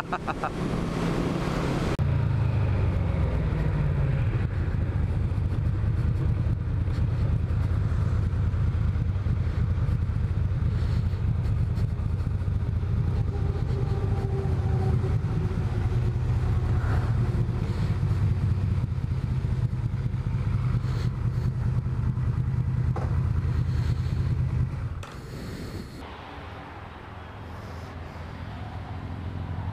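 1986 Yamaha V Max's V4 engine, heard from the saddle, slowing from road speed with wind rush for the first couple of seconds, then settling into a steady low idle. The engine note stops about 25 seconds in.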